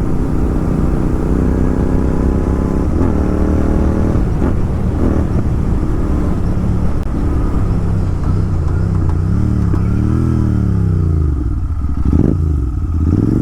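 Royal Enfield Continental GT 650's parallel-twin engine running on the move through a loud Red Rooster aftermarket exhaust. Its pitch eases down over the first few seconds, then rises and falls once about ten seconds in as the throttle is opened and shut, with a short sharp pop soon after.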